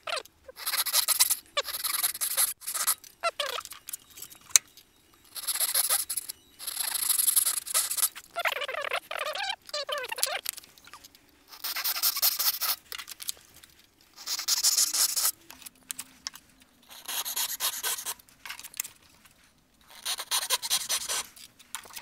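Hand saw cutting wood, rasping in short runs of strokes, each about a second long, with brief pauses between them.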